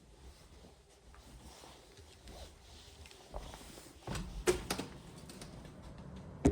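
Quiet room tone, broken about four seconds in by a few sharp clicks and knocks, with one louder click at the very end.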